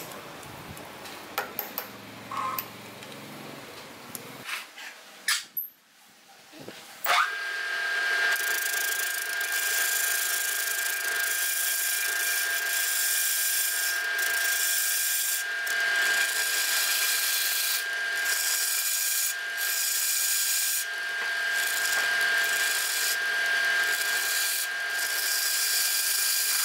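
A wood lathe starts suddenly about seven seconds in, after a few faint knocks, and runs with a steady motor whine. A hand-held turning tool cuts into the end of a spinning wooden cup, and the cutting hiss comes and goes as the tool is pressed in and lifted off.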